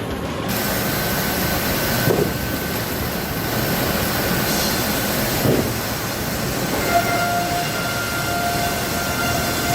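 Sawmill machinery running: a steady mechanical rumble with a thin whine, and a few knocks. A second, lower whine joins about seven seconds in.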